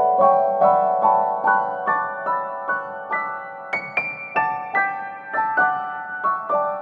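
Background piano music: a gentle run of single notes, several a second, with a slight rise in pitch near the middle.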